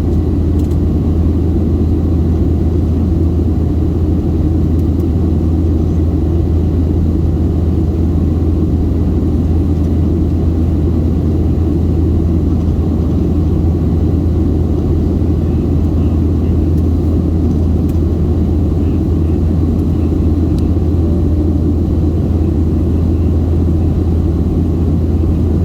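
Steady low drone inside the cabin of a Boeing 737-700 in its climb after takeoff, from its CFM56-7B engines and the airflow over the fuselage.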